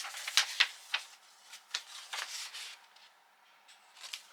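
Paper sheets rustling and crinkling as they are handled, with several sharp crackles in the first two seconds.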